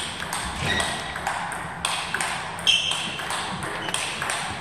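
Table tennis balls clicking and pinging off tables and bats, in an irregular run of sharp clicks, a few with a short high ring.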